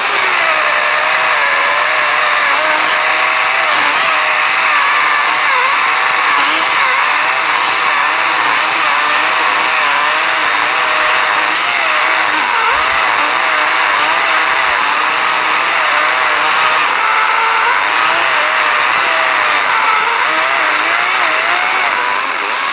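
DeWalt battery-powered electric chainsaw cutting through a bush honeysuckle stump near the ground, its motor whine wavering up and down in pitch as the chain loads in the wood. The chain is dull by the owner's own account. It stops abruptly at the end.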